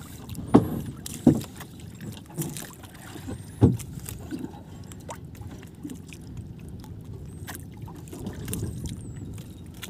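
Small fishing boat drifting with its engine off: a low steady wash of water and wind, broken by four sharp knocks in the first four seconds, the first the loudest.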